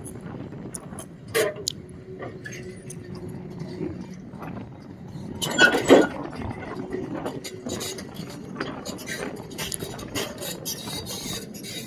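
Excavator being loaded onto a trailer: scattered metal clinks and knocks over a steady engine hum, with one louder clattering clank about six seconds in.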